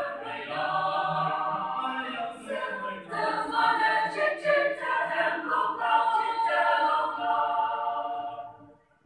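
Choir singing, closing on long held notes that fade out about a second before the end.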